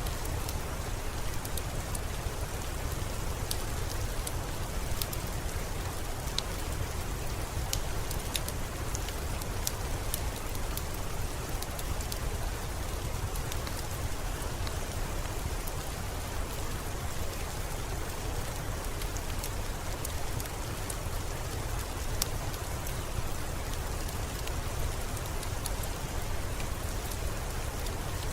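Steady rain falling, an even hiss over a low rumble, with scattered sharp ticks throughout.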